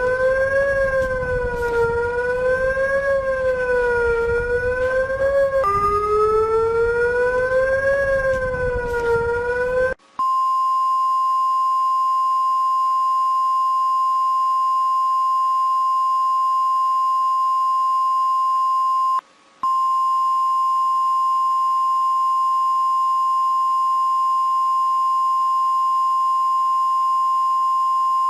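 Emergency alert siren: a rough, wavering tone that rises and falls in roughly two-second swings. About ten seconds in it gives way to a steady single-pitch alert tone, which drops out briefly about two-thirds of the way through.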